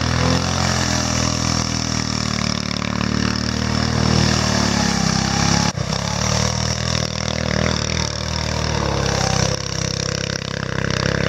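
Home-built go-kart's small engine running as it is driven around, its speed rising and falling. The sound breaks off for an instant about six seconds in and carries straight on.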